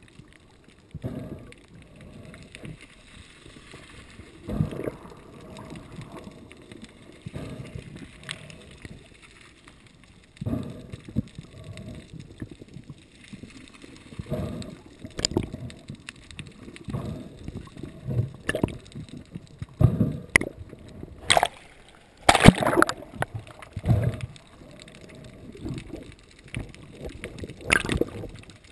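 Seawater sloshing and gurgling in irregular surges, with a few sharp knocks in the last third.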